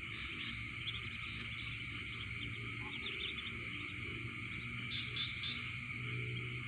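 Night chorus of frogs and insects: a steady high trill with clusters of short chirps over it, around five seconds in, and a low hum underneath.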